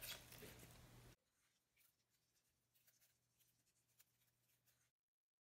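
Faint scratching and scraping of a silicone spatula turning raw chicken pieces in a plastic container, stopping suddenly about a second in; then near silence with a few faint clicks.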